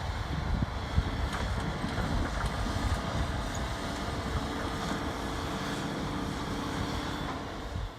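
Doosan DX180LC tracked excavator's diesel engine running steadily at work, a low rumble with a faint steady whine, and wind buffeting the microphone.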